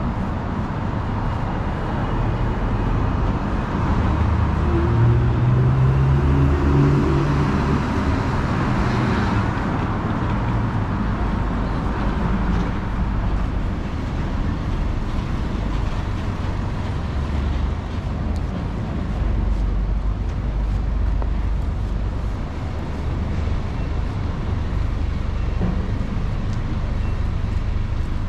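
City street traffic: a steady rumble of passing cars, with one vehicle's engine passing more loudly about five seconds in.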